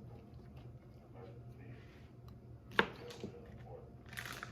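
Knife work on raw chicken on a cutting board: one sharp knock of the blade on the board about three seconds in, a softer one just after, and a brief scrape near the end, over a steady low hum.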